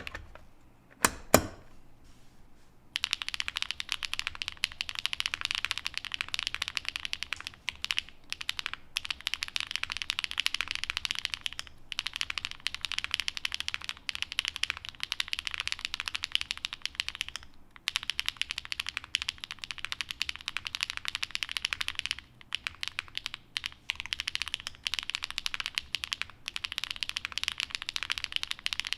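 Fast, steady typing on a custom mechanical keyboard (Qwertykeys NEO80, POM plate, full foam, gasket mount, GMK keycaps) with HMX Sunset Gleam 'Duck Duck' linear switches, which have a PC top and a fiberglass-filled PA66 bottom housing. The keys bottom out in a dense run of clicks with a few short pauses. Two sharp clicks come first, and the typing starts about three seconds in.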